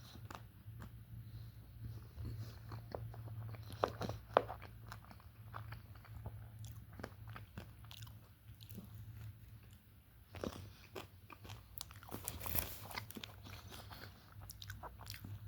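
A person biting and chewing food close to the microphone, with scattered crunches and mouth clicks, the loudest about four seconds in and again near twelve seconds. A steady low hum runs underneath.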